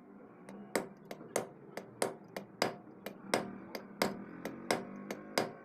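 Hammer blows on metal during reduction-gearbox work, striking in a steady rhythm of about one and a half a second, with lighter taps in between.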